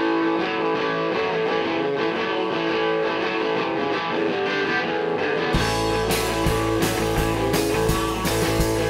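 Rock band song intro: a hollow-body electric guitar plays alone, then about five and a half seconds in the drums and bass guitar come in with a steady rock beat.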